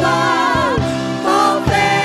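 Vocal group singing a Portuguese-language gospel worship song live with band accompaniment, voices holding long wavering notes over a few drum hits.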